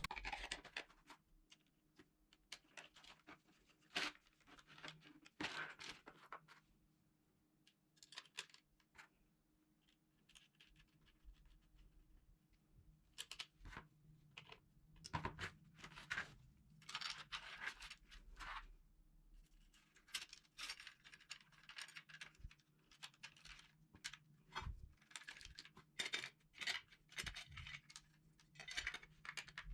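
Faint, irregular clicks, scrapes and light metallic knocks of an E&L AK-74 airsoft replica's parts being handled and fitted back together by hand, more frequent in the second half.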